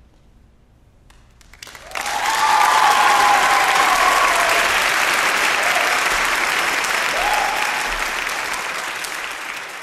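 After a brief hush, audience applause breaks out about two seconds in and then slowly tapers off, with a few cheers over it.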